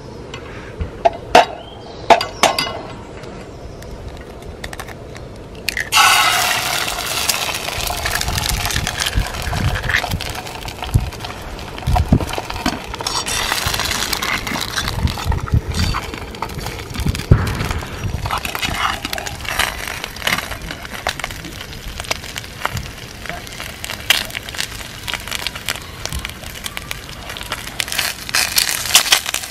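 A few sharp taps, then about six seconds in an egg drops into hot oil in a freshly seasoned steel frying pan on a gas burner and starts sizzling, with crackling and spitting that goes on as it fries. It is an egg test of the pan's new non-stick seasoning.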